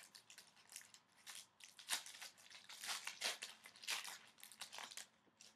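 Hockey trading cards being handled and flipped through, a quick run of crinkling rustles that stops shortly before the end.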